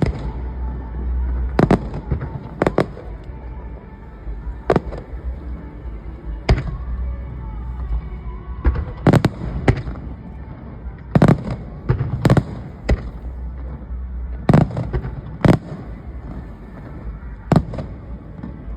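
Aerial fireworks bursting: sharp bangs at irregular intervals, sometimes two or three in quick succession, over a steady low rumble.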